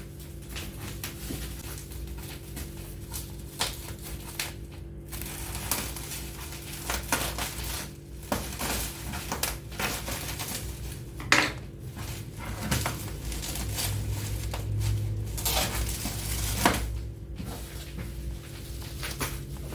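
Irregular clatter, clinks and knocks of hard objects being handled, as the mini refrigerator and its parts are unpacked, with sharper knocks about eleven and seventeen seconds in. A steady low hum runs underneath.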